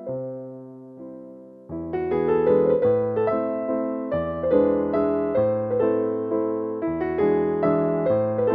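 Background keyboard music in a piano sound. A held chord fades out, then about two seconds in a steady run of struck chords begins.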